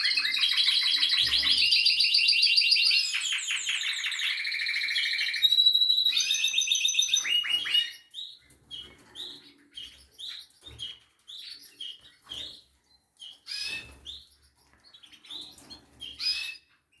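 Spanish Timbrado canary song: fast trills and rolls of rapidly repeated notes with no break for about the first eight seconds, then giving way to short, scattered chirps.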